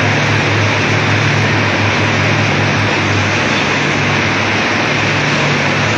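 Loud, steady din of a tractor assembly hall: an even rushing noise of machinery with a steady low hum underneath.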